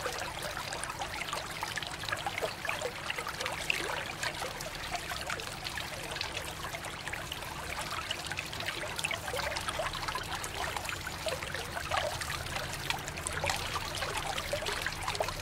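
A stream of running water pouring over a small plastic toy train held in the hands, splashing and trickling steadily into a shallow water-filled basin.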